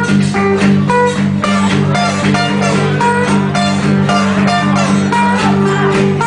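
Instrumental break of a live acoustic band: steady bass notes under quick runs of plucked guitar notes, with no singing.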